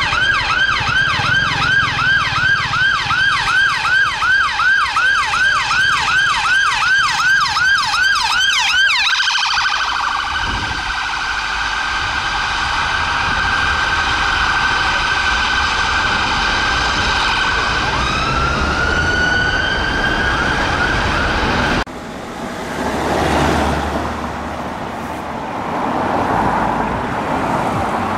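Emergency vehicle siren on a fast yelp, about three sweeps a second, switching about nine seconds in to a slower wail that rises again near the end. It cuts off abruptly and gives way to passing road traffic.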